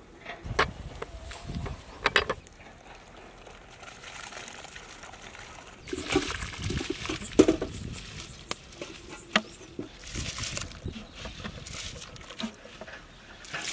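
Rice being tipped from a metal bowl into a large pot of hot spiced water, a rushing, splashing pour that comes in two spells, with scraping and clinks of a metal ladle against the bowl. A few sharp metal knocks in the first couple of seconds as the pot lid is lifted off.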